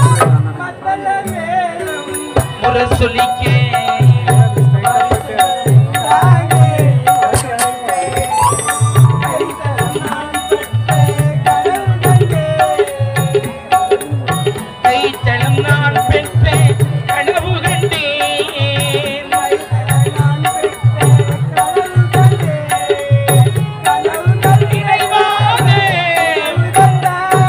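Live Tamil folk stage-drama music: a drum keeps a steady beat under a wavering melody.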